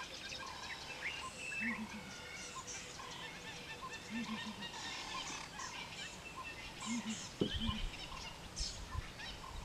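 Wild birds calling over one another, with a low three-note call repeating about every two and a half seconds. A brief dull thump about seven and a half seconds in.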